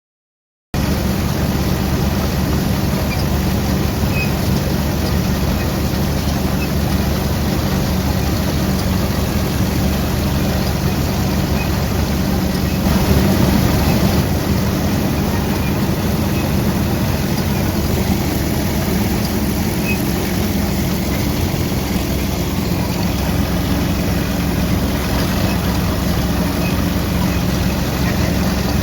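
Engine of vintage harvesting machinery running steadily at an even speed.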